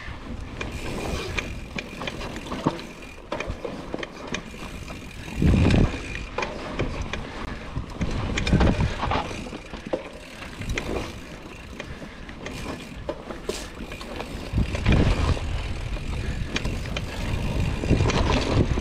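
Hardtail mountain bike ridden over a rough dirt trail: tyres rolling, with the chain and frame clattering and rattling over bumps. A few heavy low thumps come through, about a third of the way in, halfway and near the three-quarter mark.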